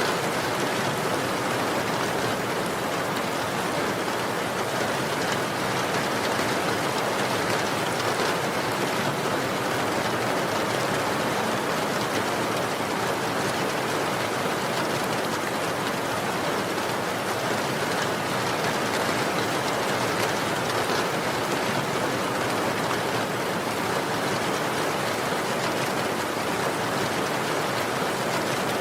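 Steady, even rain falling, a continuous hiss with fine patter of drops.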